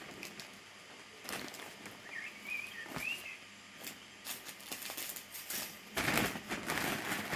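Plastic packets and wrapping being handled: scattered rustles and light clicks, turning to denser crinkling about six seconds in. A few faint high chirps come around two to three seconds in.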